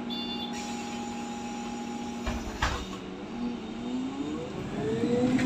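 MAN Lion's City CNG city bus heard from inside the passenger cabin. The engine runs steadily at first, two sharp knocks sound a little over two seconds in, and then the engine and driveline pitch rises and falls as the bus accelerates, getting louder near the end.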